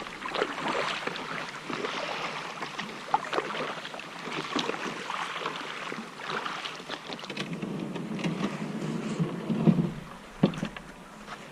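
Kayak paddle strokes: the blades dipping into calm water with splashing and dripping. Later a low rumbling stretch and a single sharp knock near the end.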